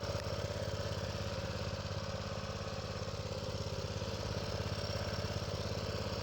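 Baja mini bike's small single-cylinder engine idling steadily, with an even firing pulse.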